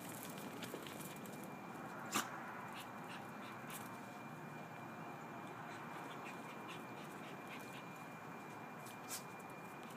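Pug puppy moving about on a concrete floor: scattered light clicks, with a sharper one about two seconds in and another near the end, over a steady background hiss.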